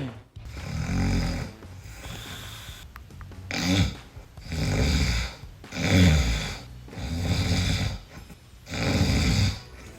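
A person snoring heavily: a run of about seven long snoring breaths, one every second or so, with short pauses between.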